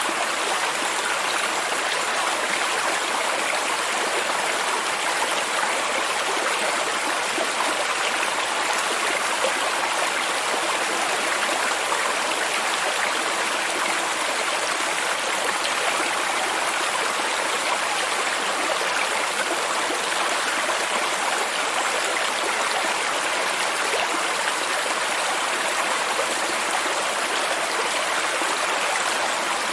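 Stream and waterfall: running water rushing steadily as an even hiss, with little deep rumble and no breaks.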